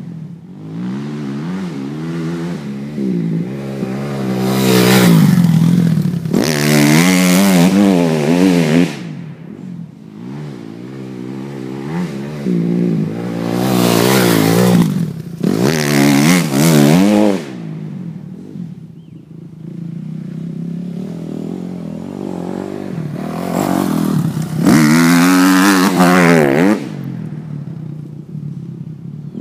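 2007 Kawasaki KX250F four-stroke single-cylinder dirt bike engine revving up and down through the gears, getting loud several times as the bike comes close and fading between.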